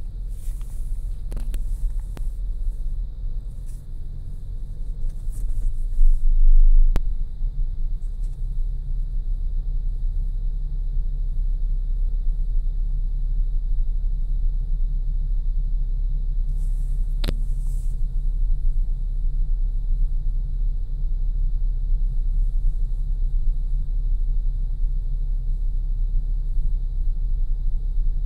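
Steady low rumble of a car's engine and tyres heard from inside the cabin while driving over an ice-glazed road, with a louder swell about six seconds in and a few faint clicks.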